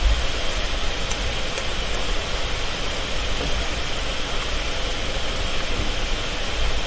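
Steady background hiss with a low rumble underneath, unchanging throughout, with no speech.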